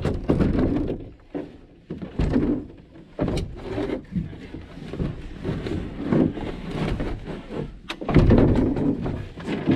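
Irregular hollow knocks and thumps of a canoe hull carried overhead on a portage, the boat shifting and bumping as it is walked along, picked up by a camera mounted on the hull. The loudest thumps come near the start, at about two and three and a half seconds, and about eight seconds in.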